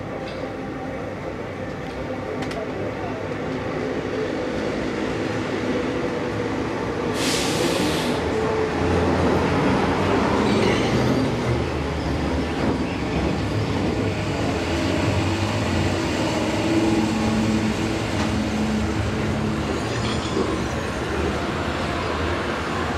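Athens Line 1 (ISAP) electric train running in close alongside on the next track, its rumble growing louder over the first ten seconds, with steady squealing of wheels and brakes. A short hiss sounds about seven seconds in.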